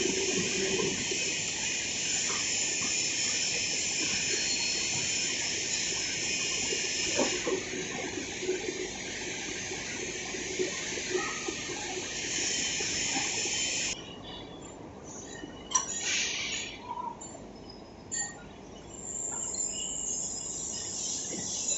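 Steady machine-shop noise: a high hiss with a few light knocks. The hiss drops away abruptly about 14 seconds in.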